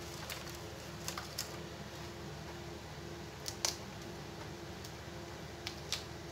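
Small sharp clicks and taps of hands handling the flat ribbon cables and their plastic connectors on a flat-screen TV's circuit boards, scattered, with the sharpest a little past halfway. A steady low hum runs underneath.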